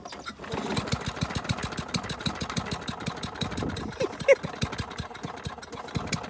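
Small lawn mower engine running with a rapid, slightly uneven chugging.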